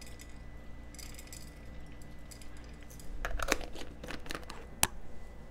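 Black peppercorn grinder being twisted, a faint crunching of peppercorns being ground, followed about three seconds in by a cluster of light clicks and ticks as the grinder bottle is handled, with one sharp click near the end.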